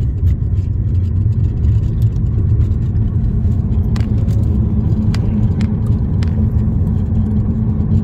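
Steady low rumble of a car's engine and tyres, heard from inside the moving car's cabin, with a few light clicks near the middle.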